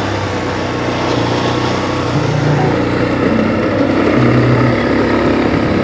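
Small ATV (quad bike) engine running while it is ridden across grass, its pitch stepping up and down with the throttle.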